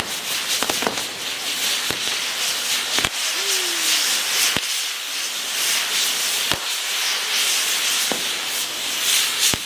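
Fireworks going off: a dense, steady crackling with about seven sharp bangs at uneven intervals of one to two seconds.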